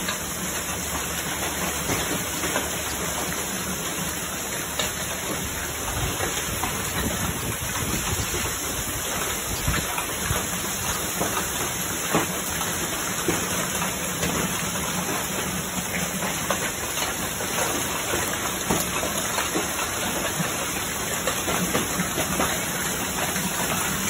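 Hail and heavy rain pelting down: a dense, steady hiss with many sharp ticks of hailstones striking.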